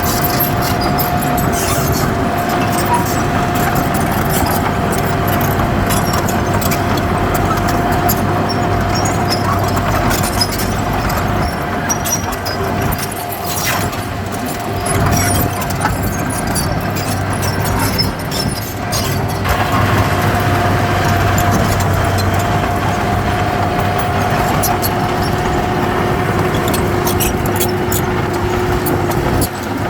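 Heavy diesel earthmoving machinery running steadily under load, with a steady whine over the low engine hum and scattered light metallic clicks.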